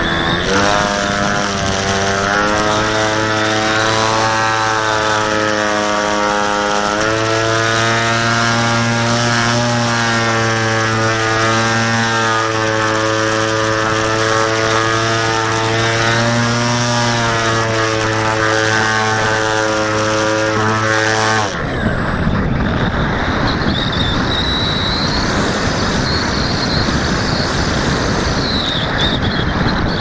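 Electric 2215 outrunner motor and propeller of a Skywalker Eaglewing flying wing, recorded on board: a steady motor tone whose pitch shifts a little with throttle, stepping up about seven seconds in. About two-thirds through the motor cuts off abruptly, leaving wind rushing over the airframe as the throttle is cut for the gliding landing approach.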